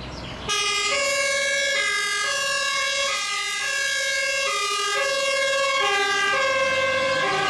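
Two-tone siren of a MAN fire engine on an emergency run, stepping steadily back and forth between a low and a high note. It starts about half a second in.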